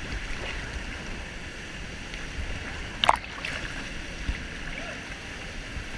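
Steady rushing water of a waterfall and its stream. A brief sharp sound stands out about three seconds in.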